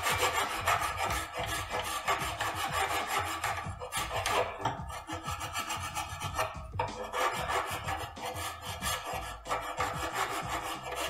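Hand file scraping back and forth in repeated strokes over the pad slide areas of a steel brake caliper bracket, taking off rust so the new pad hardware sits flush.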